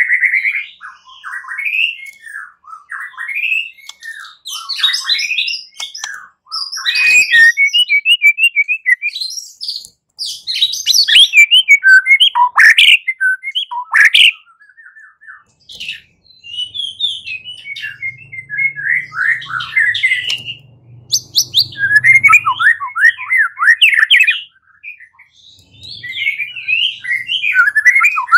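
White-rumped shama (murai batu) singing its loud, aggressive fighting-style song: rapid, varied whistled phrases and chattering trills in quick succession, broken by short pauses near the middle and about three-quarters through.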